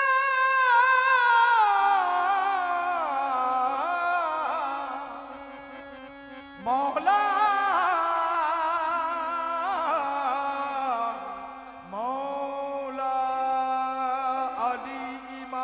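Qawwali singing: slow, gliding vocal phrases with harmonium over a low held drone note. The first phrase falls and fades away, then new phrases begin about seven seconds in and again about twelve seconds in.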